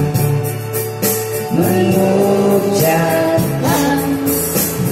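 Karaoke backing track with a steady beat, under a woman singing an Indonesian nostalgic pop song in held, drawn-out notes; a new sung line starts about three seconds in.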